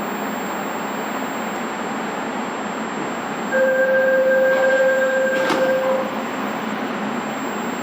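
Korail 341000-series electric train running into the station with a steady rumble, and a single steady horn blast about two and a half seconds long starting about three and a half seconds in.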